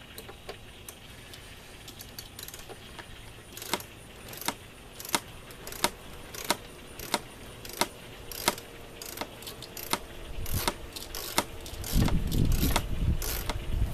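Ratchet of a Craftsman torque wrench clicking as a Torx bolt is run in, one sharp click about every two-thirds of a second. A low rumble comes in near the end.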